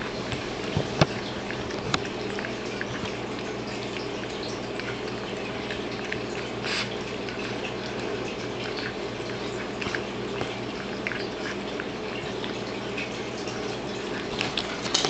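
Domestic cat eating wet tuna from a bowl: small, irregular wet smacking and lapping clicks over a steady background hum.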